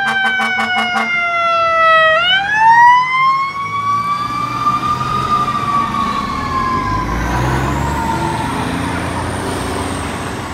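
Fire apparatus electronic sirens in wail mode. The tone is rapidly pulsed for about the first second, then glides down, rises to a peak about five seconds in and slowly falls again, while a second, higher siren tone rises in the latter half. A truck engine rumbles underneath about seven seconds in.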